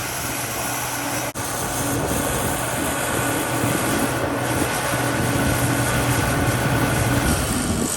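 Engine of farm machinery running steadily at constant speed, a low drone with rushing noise, broken by a momentary drop about a second in.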